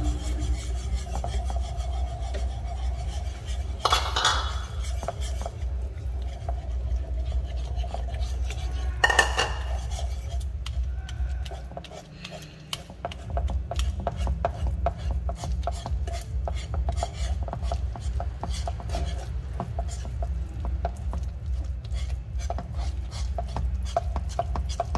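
Wire whisk scraping and rasping against a nonstick frying pan as flour is beaten into hot melted margarine, milk and water, the mix clumping into choux dough. A steady low hum runs underneath.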